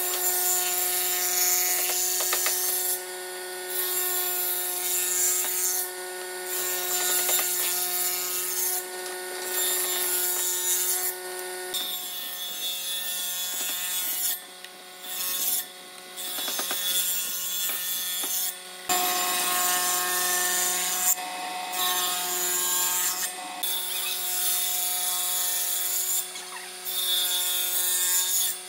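Table saw running steadily with a constant motor hum while its circular blade cuts through wooden boards in repeated passes. Each cut is a loud, harsh rasp of a second or two, with short quieter gaps between passes.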